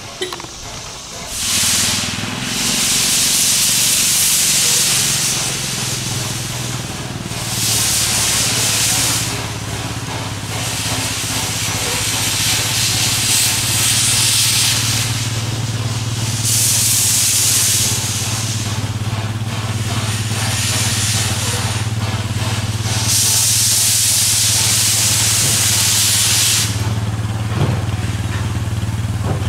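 Steam locomotive hissing as it vents steam, in four spells of loud hiss a few seconds each, over a steady low hum.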